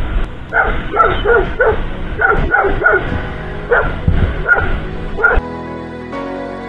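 A dog barking repeatedly, in short sharp barks over the low rumble of a moving motorcycle and wind. About five seconds in, the barking gives way to background music.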